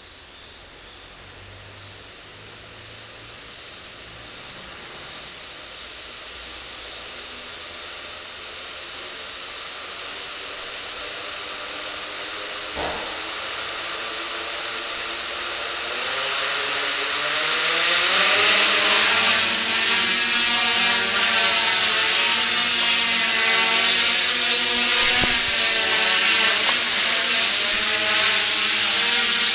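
Erle-Copter quadcopter's motors and propellers: a faint high whine that grows steadily louder, then, about halfway through, the rotors throttle up into a loud buzzing hum whose pitch wavers up and down as the drone lifts off and flies.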